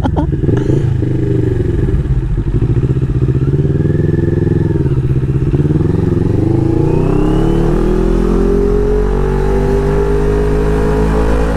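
CFMoto 400NK's parallel-twin engine heard from the rider's seat: revs rise and fall for the first several seconds, then climb steadily in one long pull from about seven seconds in.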